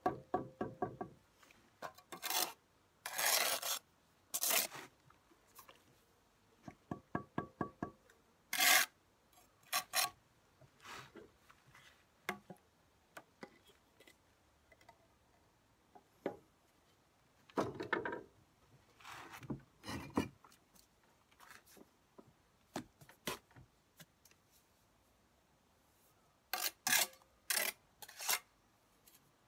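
Brick trowel working a soldier course of bricks: quick runs of light taps, about eight a second, as the trowel handle knocks a brick down into its mortar bed, a couple of times. Between them the trowel blade scrapes across wet mortar and brick, with scattered knocks near the end.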